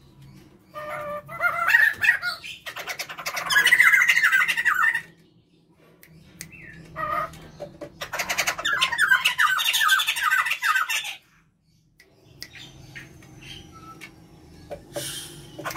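A pair of poksay jambul (white-crested laughingthrushes) calling together in two loud bouts of fast, chattering, laughter-like notes, each a few seconds long. Only scattered quieter calls sound in the last few seconds.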